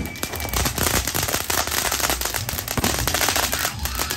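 A ground fountain firework spraying sparks: a steady hissing rush packed with rapid sharp crackles.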